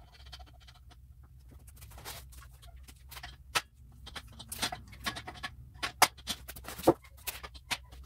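Clicks, knocks and rattles of a WEN steel folding miter saw stand being handled and adjusted, its rails and clamp knobs being set. The knocks come thick and fast from about two seconds in, with a few sharp ones standing out.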